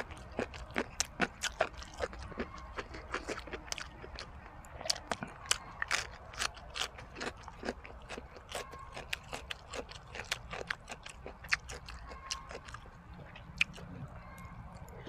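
Someone chewing a crunchy salad of jellyfish and beef tripe: many sharp, irregular crunches and wet clicks, several a second.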